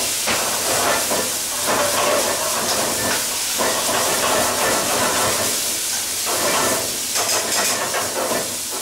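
Mushroom and onion sauce with whiskey, cream and gravy hissing and bubbling in a hot frying pan as it starts to reduce, stirred with a spoon, with uneven swells every second or two.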